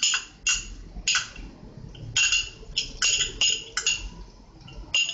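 A metal spoon clinking against kitchen utensils: about a dozen sharp, ringing clinks at an irregular pace.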